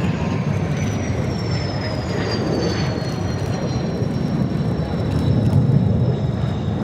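Kawasaki T-4 jet trainers passing overhead, their twin turbofans giving a steady low rumble under a high whine that falls in pitch as they move away.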